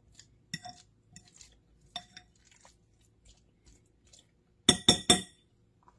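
Utensil clinking against a dish: two light ringing clinks early, then three quick, louder clinks in a row near the end.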